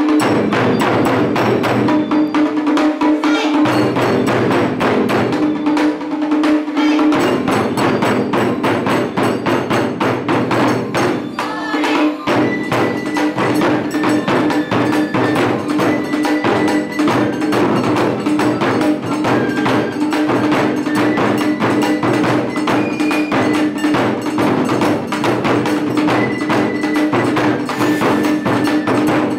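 Taiko drum ensemble playing: several large barrel drums and small drums struck with wooden sticks in fast, dense strokes that carry on without a break.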